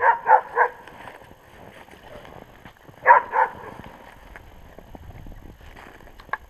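West Siberian laikas barking: three quick barks at the start, then two more about three seconds in, with faint rustling between.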